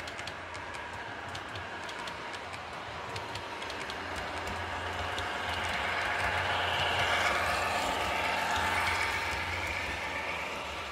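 Model railway train, a streamlined multiple unit, running along the track close past: a steady whirring rolling noise that swells to its loudest about seven seconds in, then eases off, with light clicking in the first seconds.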